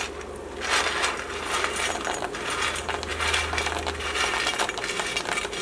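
Dry soya chunks rattling out of a stainless-steel bowl and dropping into a pan of boiling water: a continuous run of quick, irregular small clinks and rattles over the bubbling of the water.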